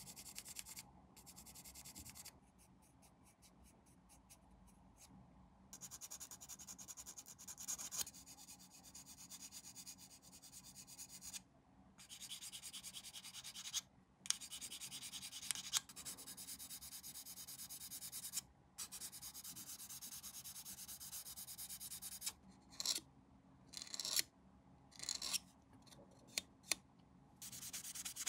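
Plastic model kit part being hand-sanded: runs of quick rubbing strokes lasting a few seconds each, with short pauses between them, then a cluster of short, sharper strokes near the end.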